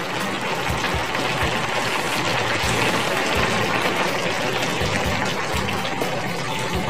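Squid and bell peppers sizzling and simmering in sauce in a frying pan on a gas burner, a steady hiss.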